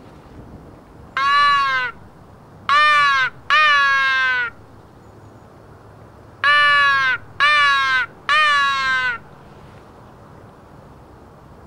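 Johnny Stewart Hammerin mouth-blown crow call giving six caws in two groups of three, each note dipping in pitch at its end.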